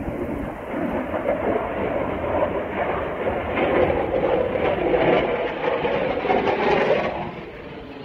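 Fighter jet flying past overhead: its jet engine noise builds over the first seconds, is loudest in the middle, then drops away quickly near the end.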